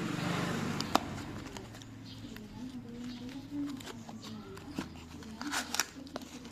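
A parcel's packaging being opened by hand: rustling, crinkling and tearing of the wrapping, with a sharp click about a second in and a few more clicks near the end.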